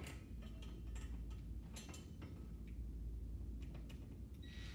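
Irregular light clicks and ticks of small hardware being handled: a metal wall cleat, screws and a drill worked at the wall before the first screw goes in.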